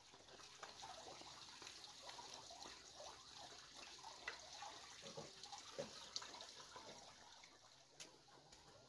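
Near silence: faint outdoor ambience, a steady high hiss with scattered soft chirps and ticks, and one sharp click about eight seconds in.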